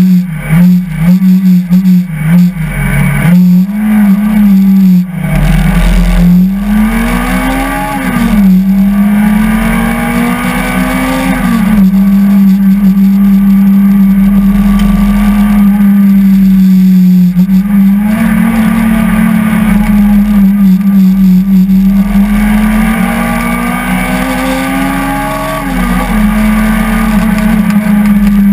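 Peugeot 205 F2012 hillclimb car's engine at high revs, heard from inside the cabin: choppy and changing quickly at first, then the note climbs steadily through the gears and drops sharply at each upshift, about three times.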